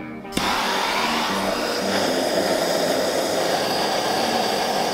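Handheld gas blowtorch burning with a steady, loud hiss, starting suddenly about a third of a second in, as its flame heats a rusted steel bracket on a truck axle.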